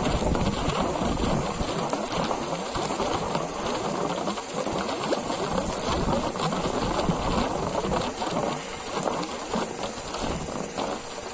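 Air and muddy water sputtering and spattering out of the end of a black airlift hose onto bare ground, a dense crackling spatter. The flow is weak and comes in spurts because the hose has jammed partway down the 60-metre well.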